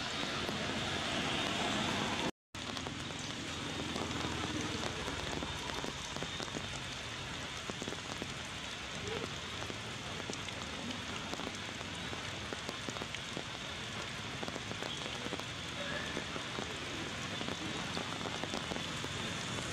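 Steady rain, an even hiss dotted with many small drop ticks. The sound cuts out completely for a moment about two seconds in.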